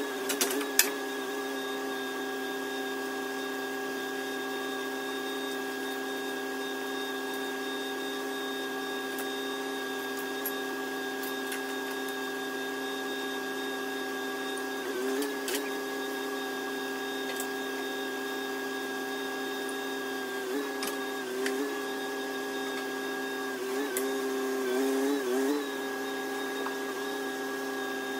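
Forklift running with a steady whine as its mast lifts an engine and transmission. The pitch dips and the sound swells briefly a few times, longest a little before the end.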